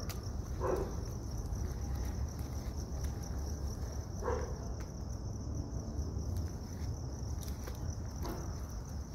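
Crickets chirring steadily as a high background over a low outdoor rumble, with three short faint sounds a few seconds apart.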